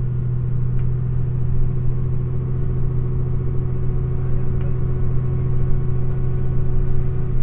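A steady low mechanical hum at one constant pitch, running evenly with a rumble beneath it.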